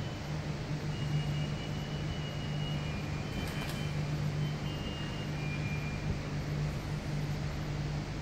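Steady low machinery hum, as from the ventilation or plant of a large warehouse, with a few faint short high-pitched tones now and then.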